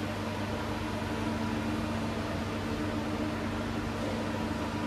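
Makino U6 H.E.A.T. wire EDM machine running: a steady hum with several low tones over an even hiss.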